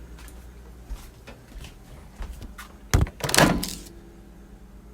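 Microwave oven door opened: a sharp clunk of the latch about three seconds in, followed by a brief rattle, after a few small handling clicks.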